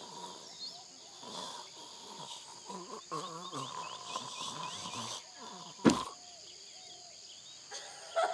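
Animated wildlife ambience: many chirping bird-like calls and lower animal cries over a steady high drone. One sharp crack stands out as the loudest sound, about six seconds in.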